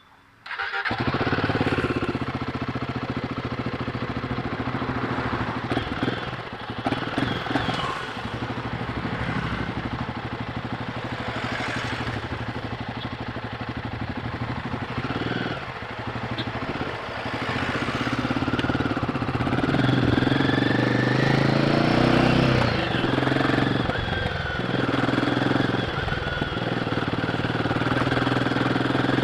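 Royal Enfield Guerrilla 450's single-cylinder engine on its stock exhaust, starting up about a second in and running at a steady idle, with the revs rising and falling in the second half.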